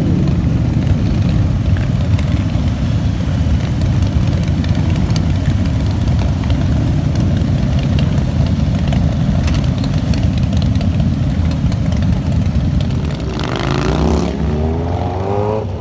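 Several motorcycle engines running together as a line of motorcycles rolls past at low speed. About thirteen seconds in, one engine revs, its pitch rising and falling.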